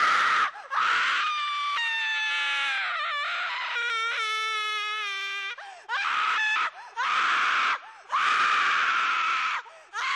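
High-pitched horror screams: several harsh screams separated by short breaks, with a long wavering wail in the middle that slowly falls in pitch.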